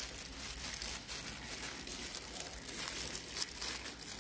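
Thin plastic disposable gloves crinkling in irregular rustles as hands toss and rub pieces of fried tofu in a minced lemongrass-and-chili marinade, with soft wet squishing of the food.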